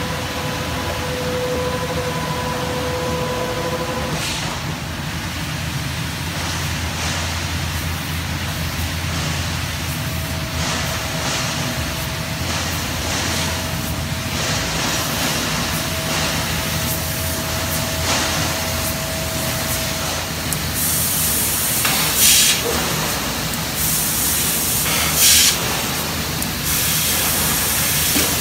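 Mazak Super Turbo X510 Mk II CNC laser cutter running: a steady machine hum with faint whining tones. From about three-quarters of the way through, loud hissing bursts start and stop as the head cuts sheet metal.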